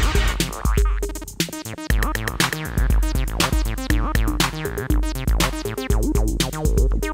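Electronic groove from a Roland TR-8S drum machine playing a TR-808 kit, with rapid hi-hat ticks over a deep 808 kick. Under it runs an acid bassline from a Korg Monologue synthesizer, stepping through short notes.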